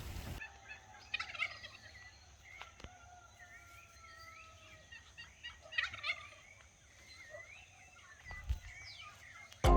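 Domestic turkey gobbling in a few short bursts, with thinner warbling bird calls between them.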